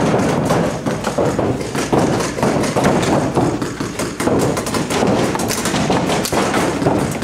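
Paintball markers firing in rapid strings of sharp pops, mixed with the thuds of paintballs hitting the inflatable bunkers.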